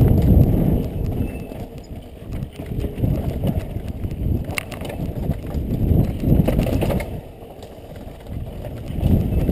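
Mountain bike descending a rough dirt trail, heard from a helmet-mounted camera: a low rumble of tyres and wind on the microphone, with the bike rattling over bumps and a sharp clatter about four and a half seconds in. The rumble swells and drops as the speed changes and is quietest shortly before the end.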